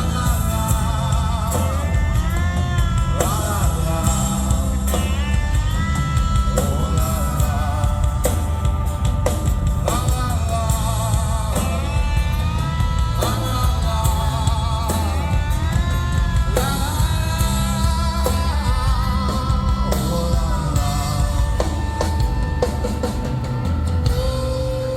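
Live rock band playing an instrumental break: drum kit and bass under a lead line of bending, wavering notes, with a steady held note coming in near the end.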